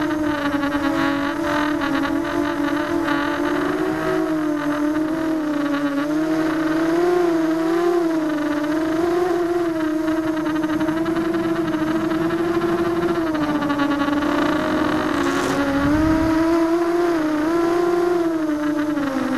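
Brushless motors and propellers of a ZMR250 racing quadcopter whining, picked up by the camera on the quad itself, the pitch rising and falling as the throttle changes. A brief low rush of noise near the end.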